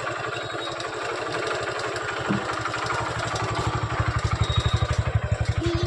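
Honda CD 110 Dream's single-cylinder four-stroke engine idling steadily after a top-end rebuild, an even beat of about eleven firing pulses a second, louder from about four seconds in.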